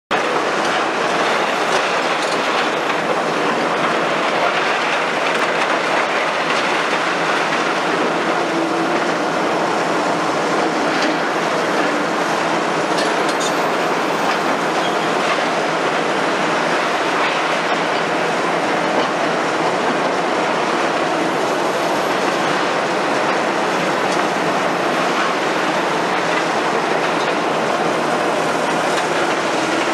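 Liebherr R960 demolition excavator working concrete and rebar: its diesel engine under load and the tool crunching and scraping make a dense, continuous din. Faint high metallic squeals come through a few times.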